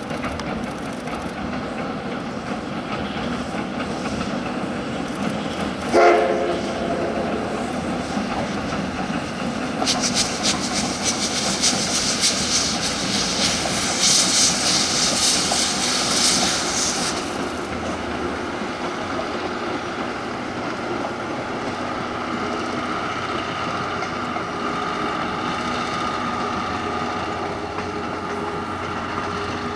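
C58 steam locomotive blowing one short whistle blast about six seconds in, against the train's running noise. Later comes a stretch of dense clatter and hiss that eases into a steadier, quieter rumble.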